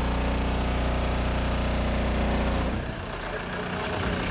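Deep, steady bass tone from the Volkswagen Caddy's five 15-inch subwoofers, played as a dB drag loudness test, with a buzz of overtones; it cuts off about three seconds in.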